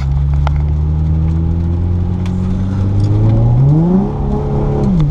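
Infiniti G35's VQ35DE V6 through headers and an aftermarket catback exhaust, accelerating: the engine note climbs gradually, revs up sharply about three and a half seconds in, dips briefly near the end and picks back up.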